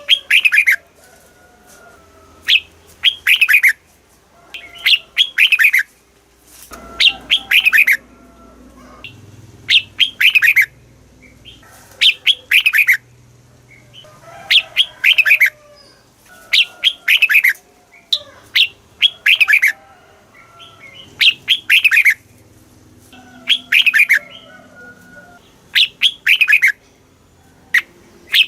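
Red-whiskered bulbul singing: a short, bright phrase of quick notes, each sweeping down in pitch, repeated every two seconds or so with brief pauses between.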